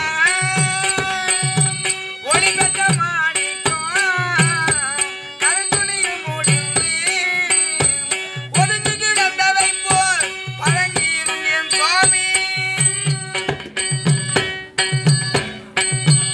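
Tamil drama-troupe accompaniment: a wavering melody over a steady held drone, with a pair of tabla-style hand drums thumping a regular beat and small hand cymbals ticking.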